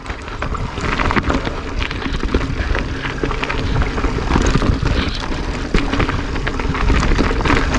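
Mountain bike riding down a rocky dirt trail: tyres rolling and crunching over stones and loose dirt, with frequent clattering knocks from the bike. A steady wind rumble sits on the camera's microphone throughout.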